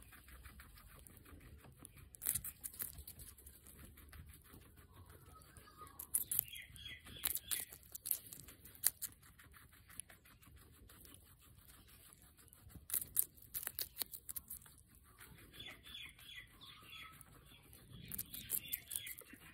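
Guinea pig biting into and chewing a slice of raw red bell pepper: crisp, wet crunching in four bouts of rapid clicks, with quieter stretches of chewing between.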